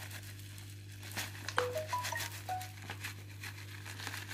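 Plastic packet crinkling as chopped praline is shaken out into the mixing bowl, with scattered small clicks of the pieces. A few brief high tones sound in quick succession about a second and a half in, over a steady low hum.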